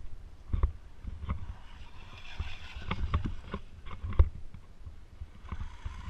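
Electric RC monster truck (Foxx S911) driving over a dirt track: irregular knocks and thumps from bumps and landings, the loudest about four seconds in.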